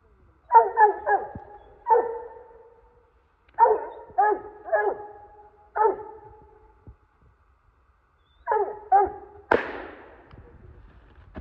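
Coonhound barking treed, in short bursts of one to four barks, then a single gunshot about nine and a half seconds in.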